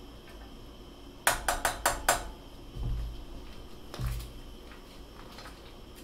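A spoon knocked five times in quick succession against the rim of a saucepan, then two dull thumps of cookware on the stovetop.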